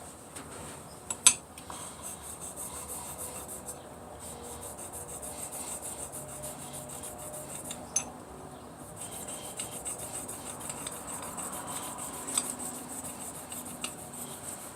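A metal hair clipper blade rubbed back and forth on an abrasive sharpening surface, a continuous scraping that grinds metal off the blade. Two sharp clicks break in, the loudest about a second in.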